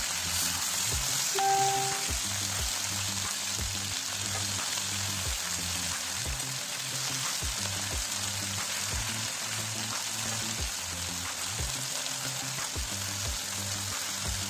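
Marinated chicken pieces frying in hot mustard oil on a tawa griddle, a steady sizzle, just after being turned to cook the second side. Background music with a steady beat plays under it.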